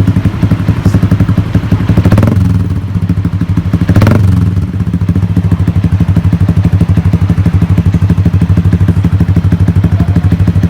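Motorcycle with an aftermarket muffler idling with an even, fast exhaust pulse. The throttle is blipped twice, about two and four seconds in, the second one sharper, before it settles back to idle.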